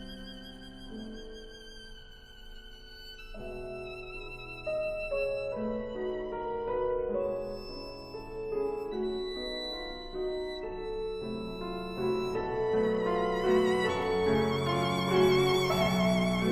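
Slow violin music with vibrato over lower sustained notes, quiet at first and swelling louder from about four seconds in.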